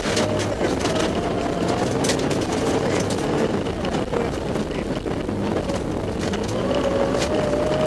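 Rally car engine heard from inside the cabin, running hard at high revs with its pitch wavering under the throttle and climbing near the end, over a steady rush of road noise and many sharp ticks and knocks from the snowy, icy stage.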